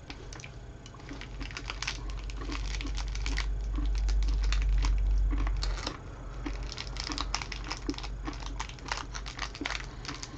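Dense run of small crackles and clicks close to the microphone, with a low rumble that swells and then drops off about six seconds in.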